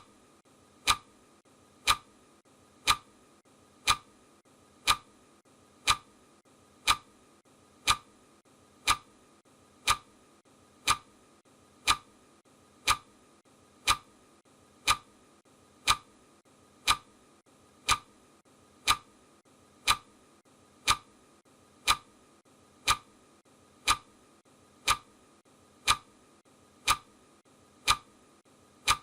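Clock ticking sound effect: a sharp, even tick once a second, counting down the timer.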